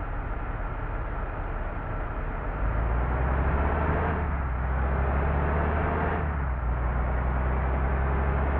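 Tour bus engine running, its low rumble getting louder about three seconds in, over a steady noisy background with faint held tones.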